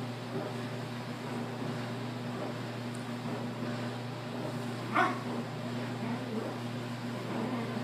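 Week-old puppies making faint sleep noises, with one short, louder squeak about five seconds in, over a steady low hum.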